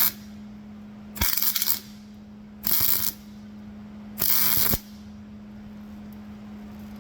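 Welder laying short tack welds: three bursts of crackling, each about half a second long and about a second and a half apart, over a steady low hum.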